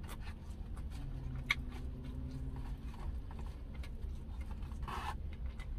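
Quiet eating sounds: soft chewing and small mouth clicks from someone eating smoked chicken wings, with a low hum lasting about two seconds and a short rustle near the end, over a steady low rumble.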